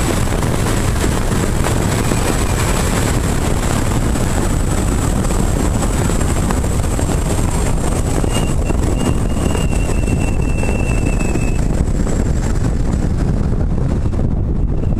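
Wind rushing over a roof-mounted camera's microphone while the car drives, with a steady low road rumble underneath.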